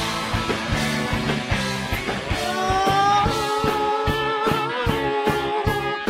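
Live rock band playing a song, with electric guitar over a steady beat; about halfway through, a held, wavering lead line comes in over the band.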